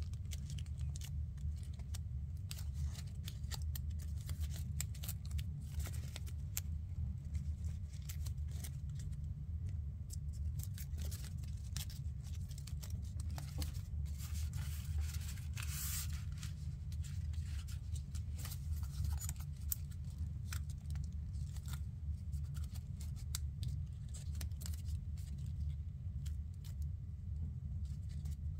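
Stiff paper crinkling and crackling in small, irregular snaps as hands fold and shape a many-layered origami model, over a steady low hum.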